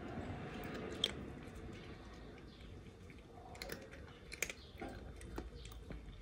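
A cat chewing and crunching small pieces of dry instant noodles: faint, irregular crisp crunches, with a sharper crack about a second in.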